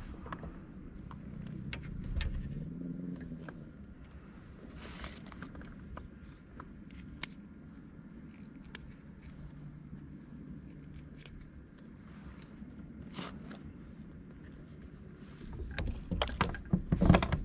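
Scattered clicks, rattles and scrapes of fishing tackle being handled aboard a kayak. Near the end comes a louder burst of knocks and rattles as a crappie is brought aboard.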